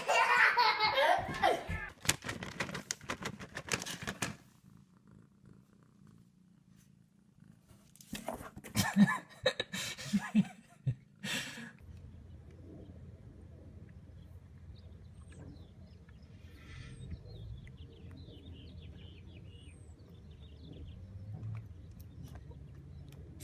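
A cat purring steadily and close up through the second half. Before it come louder, mixed bursts of sound in the first four seconds and again around nine to eleven seconds in.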